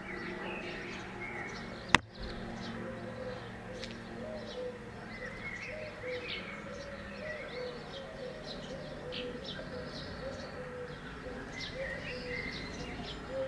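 Garden birdsong: small birds chirping in quick high notes over a low, repeated cooing. A single sharp click about two seconds in.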